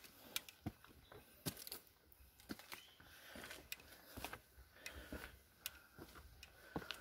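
Faint footsteps on stone steps: quiet taps and scuffs at an uneven pace.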